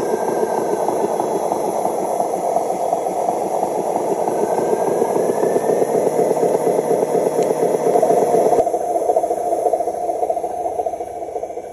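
Radio-controlled six-wheel dump truck driving over rough dirt under a load of soil: its motor and gearbox run steadily with a dense rattle. The tone shifts abruptly about two-thirds of the way through.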